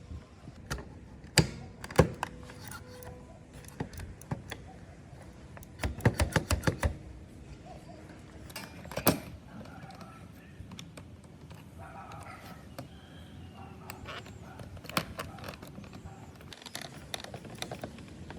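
Hand work on small hard parts: separate sharp clicks and knocks, with a quick run of about eight clicks around six seconds in.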